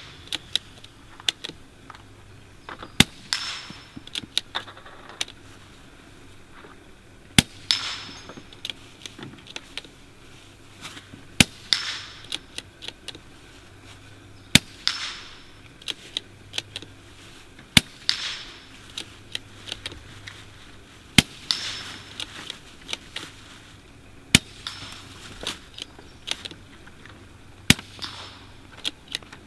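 Suppressed .22 LR bolt-action rifle, a Savage MKII FV-SR with a Tac 65 suppressor, fired slowly: eight sharp, quiet cracks about every three to four seconds, each followed about half a second later by a fainter, longer sound. Smaller clicks between the shots come from the bolt being worked.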